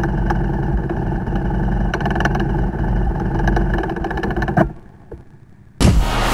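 KTM 1190 RC8 R V-twin engine running at a standstill with an irregular metallic clatter of ticks over its steady note, the kind of noise that stinks, the sign of the engine failure. It cuts off abruptly about four and a half seconds in, and near the end a whoosh and music start.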